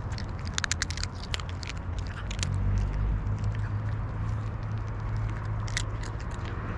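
Domestic cats crunching dry kibble, a quick run of sharp crunches in the first two seconds and scattered crunches after, one loud one near the end, over a steady low rumble.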